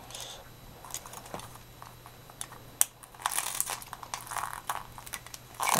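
Packaging being handled and pulled off a boxed scale model: soft crinkling and rustling with small clicks, busiest a little after three seconds in, over a faint steady hum.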